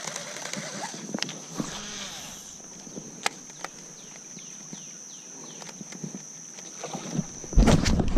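Quiet retrieve of a topwater frog lure: a few light clicks and ticks over a steady high whine. About seven and a half seconds in comes a sudden loud commotion as a spotted bass strikes the frog and the hook is set.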